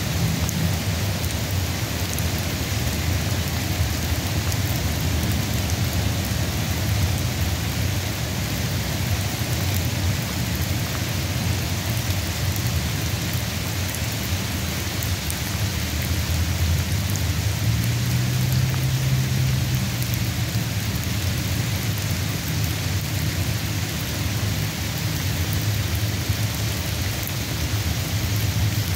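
Steady rain from a sun shower: a dense, even hiss of falling drops, with a low rumble underneath that swells briefly about two-thirds of the way through.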